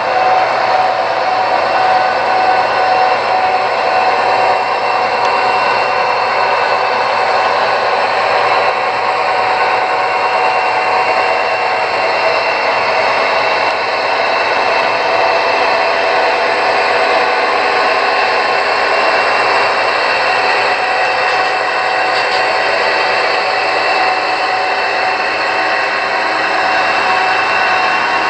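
HO scale model freight train rolling past, a steady whirring noise of the cars' wheels on the rails and the locomotive's motor.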